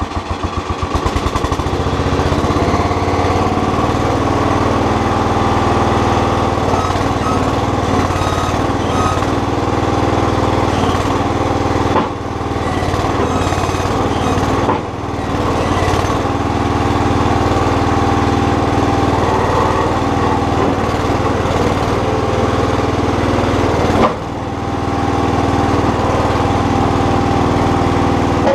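Small engine of a Terramite compact backhoe, just started and running steadily, dipping briefly three times.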